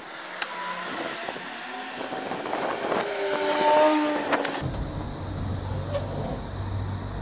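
Street traffic: a passing motor vehicle's engine and tyre noise builds to a peak about four seconds in, then gives way abruptly to a steady low engine hum.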